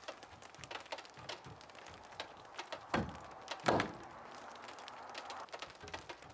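A wooden window-casing post being set into the groove of the timber sill board and pushed home: a scatter of small wood-on-wood clicks and taps, with two louder knocks about three seconds in.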